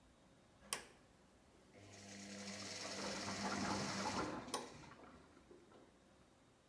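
Front-loading washing machine soaking laundry: a click, then the drum motor hums as it turns the drum for about two seconds with water sloshing inside. A second click comes as it stops, and the sound fades. This is one of the short drum turns between long pauses in the soak of the final rinse.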